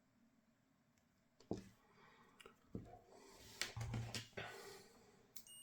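Small knocks, clicks and rustling as tools and battery parts are handled on a workbench, starting about a second and a half in, with a short high electronic beep near the end.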